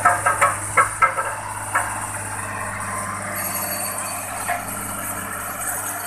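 Single-drum vibratory road roller running steadily with a low hum as it moves over loose stone road base. Several sharp clinks and knocks sound in the first two seconds.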